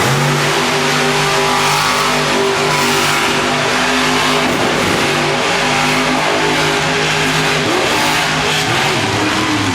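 Monster truck engine revving hard and running at high speed, its pitch holding and shifting as the throttle changes.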